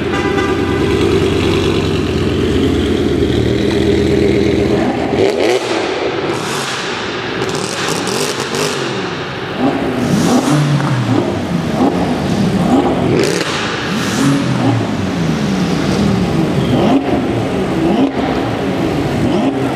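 Several tuned high-performance cars revving their engines inside a large hangar. For the first few seconds there is a steady held engine note. After that come repeated sharp revs that rise and fall, several engines in turn, with exhaust crackles and pops among them.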